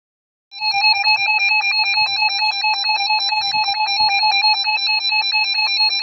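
Electronic weather-alert alarm, a shrill beep pulsing rapidly at one steady pitch, starting about half a second in; it is the alert that heralds a tornado warning broadcast.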